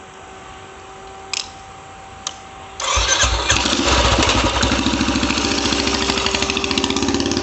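Motorbike engine starting about three seconds in and then running as the rider pulls away. Two sharp clicks come before it starts.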